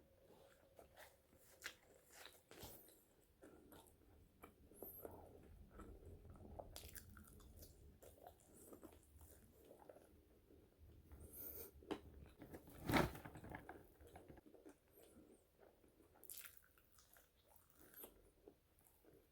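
Person biting and chewing seasoned french fries, with many small irregular crackles and mouth clicks and one sharper, louder bite about thirteen seconds in.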